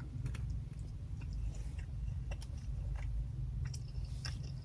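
A person chewing Panda Express food close to the microphone, with scattered small wet clicks and mouth smacks.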